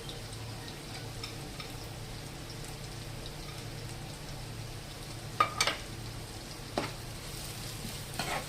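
Chopped onions and green chillies frying in hot oil on a tawa, a steady sizzle. A few short clicks come about five and a half seconds in, again near seven seconds, and just before the end.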